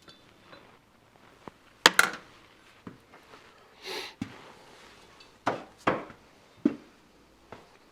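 Scattered knocks and clanks of fork parts and tools being handled on a workbench: two loud knocks about two seconds in, a short hiss near the middle, and a few more knocks later.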